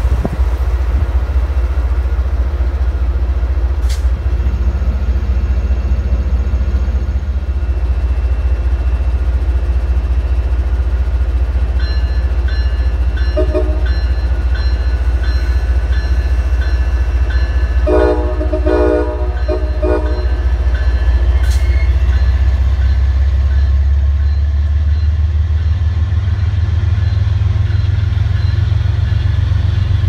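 MBTA commuter trains passing through a station: a steady low diesel rumble and rolling noise of the coaches, swelling in the last third. About halfway through a locomotive horn sounds, a short toot and then a run of several short blasts.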